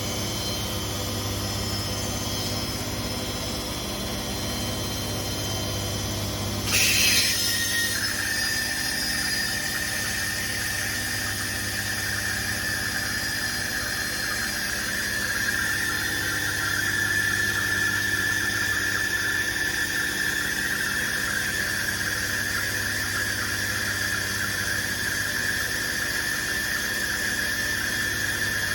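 Siemens washing machine spinning, with a steady high-pitched squeal over the low hum of the drum. The squeal sets in after a brief louder noise about seven seconds in and grows a little stronger later on.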